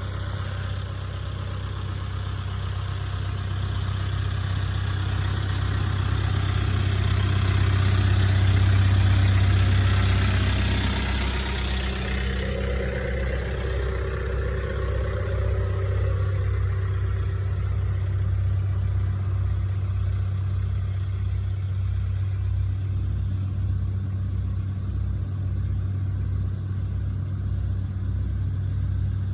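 Diesel engines of a backhoe loader and a tracked excavator running, a steady low hum that swells to its loudest about eight to ten seconds in and then settles. A brief higher whine rises and falls around thirteen to sixteen seconds in.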